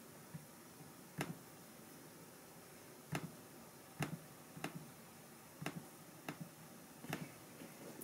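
Sharp, single clicks of an Asus ROG GU501G laptop's touchpad, about eight of them at uneven spacing, roughly one a second.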